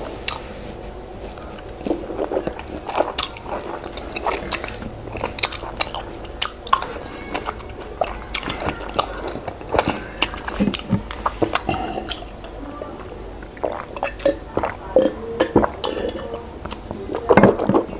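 Close-miked eating sounds: a person chewing boiled yam with owo stew, with many irregular wet mouth clicks.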